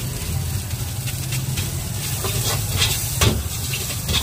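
A steel ladle scraping and tossing fried rice in a black metal wok, with short clanks and one louder knock a little over three seconds in. Under it runs a steady low rumble and hiss from the gas burner and the hot pan.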